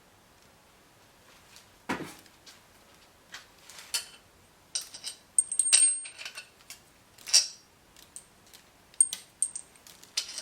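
Scattered metallic clinks and clicks of a socket wrench and loose rocker-arm hardware being worked off the cylinder head of a 6.0 L LS V8, with a clank about two seconds in and a short high squeak a little past the middle.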